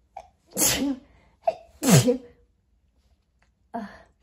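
A woman sneezing twice, each sneeze after a sharp intake of breath, about a second and a half apart, set off by dust from a Christmas tree. A softer breath follows near the end.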